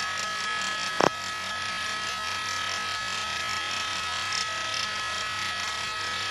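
Air traffic control radio channel open between transmissions: steady hiss and crackle with a high steady whine, and one sharp click about a second in.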